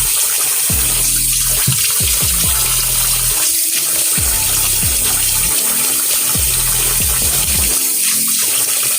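Hot water running steadily from a sink tap, an even rush, as a face mask is rinsed off.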